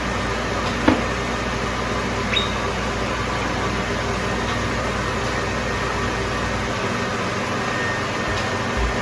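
Steady whirring hum of a textile conveyor dryer's heater and blower running, with a single sharp knock about a second in. Its lowest hum drops out about two-thirds of the way through.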